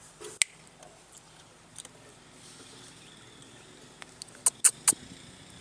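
A few sharp clicks over faint background noise: one about half a second in, then three in quick succession near the end.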